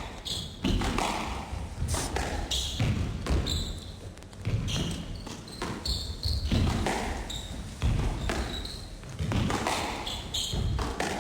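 Squash rally: the ball struck by rackets and smacking off the court walls and floor in irregular, sharp knocks, with short high squeaks in between.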